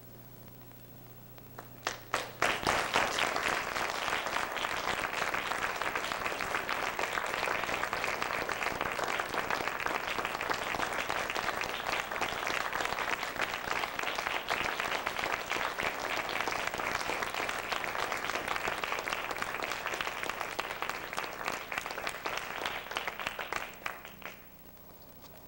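Theatre audience applauding. A few scattered claps come about two seconds in, then steady applause that dies away near the end.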